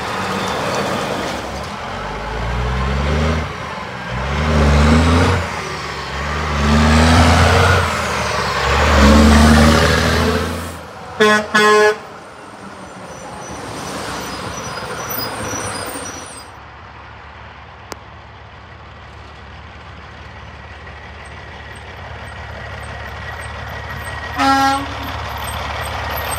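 Diesel semi-truck pulling a dump trailer accelerates away, its engine pitch rising and dropping four times as it shifts up through the gears. This is followed by two short horn blasts, a quieter truck passing, and one short horn toot near the end.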